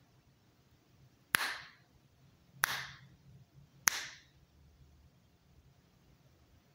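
Three sharp finger snaps, about a second and a quarter apart, each one a click for the sound-sensor module that steps an Arduino traffic light to its next state.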